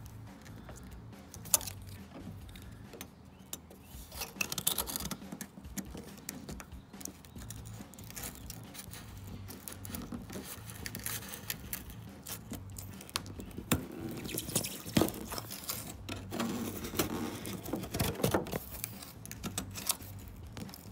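Thin metal blade scraping and ticking against the spoiler and trunk-lid edge as it is worked along the seam to cut through the spoiler's double-sided mounting tape, in irregular short scrapes and clicks.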